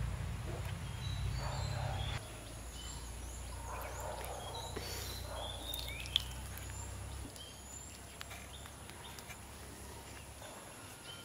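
Birds chirping and calling in short, scattered notes, over a low rumble that drops about two seconds in and fades out around seven seconds. There is a single sharp click a little after six seconds.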